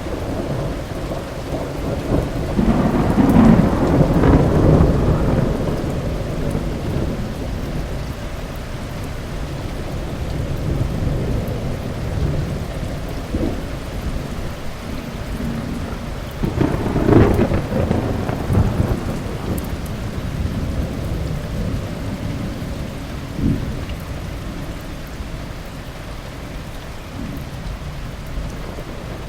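Thunderstorm: steady heavy rain, with thunder rolling loudly twice, a few seconds in and just past halfway, and a smaller rumble later.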